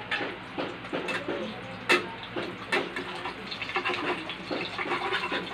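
Scrambled eggs sizzling in a frying pan, with a utensil clicking and scraping against the pan now and then; the sharpest knock comes about two seconds in.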